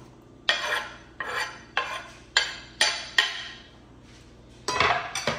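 Metal spoon scraping chopped spinach leaves off a wooden cutting board into a bowl: about six short scrapes in quick succession, then one more short scrape near the end.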